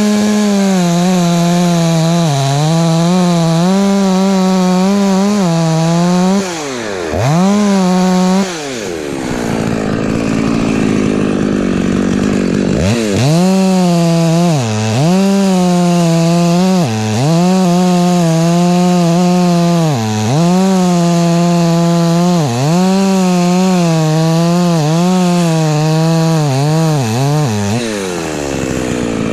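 Husqvarna 254 two-stroke chainsaw cutting at full throttle, its pitch dipping again and again as the chain bites into the wood, with a short let-off partway through and the revs dropping away near the end.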